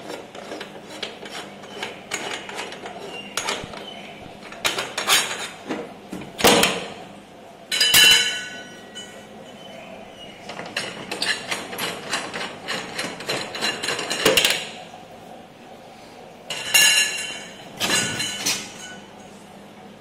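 Metal rods of a whelping box's centre partition being pulled out and handled: irregular knocks, clinks and rattles. A few louder clanks ring on briefly.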